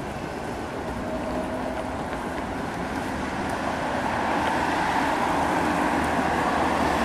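Street traffic noise, swelling over the last few seconds as a car drives past close by.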